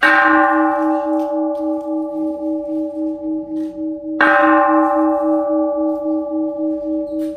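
Large temple bell struck twice, about four seconds apart. Each strike rings on with a slowly pulsing low hum as the higher tones die away.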